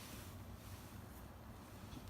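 Faint, steady background noise with a low rumble and no distinct sounds.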